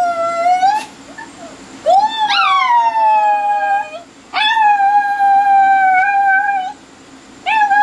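A Chihuahua howling: a string of long, high howls with short breaks between them.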